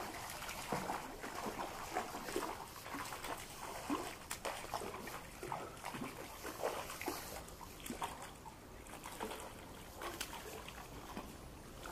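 A hooked trout splashing at the surface of a shallow river as it is played on a rod, in irregular short splashes over the steady run of the stream.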